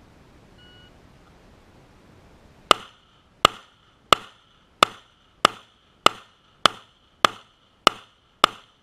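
A short, faint shot-timer beep, then ten shots from a Glock 17 Gen 4 9mm pistol, fired at an even pace about two-thirds of a second apart, each with a brief ring after it.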